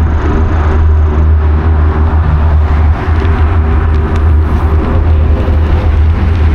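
Steady traffic noise from the multi-lane highway beside the bike path, under a heavy, fluctuating low rumble of wind buffeting the action camera's microphone as the bike rides along.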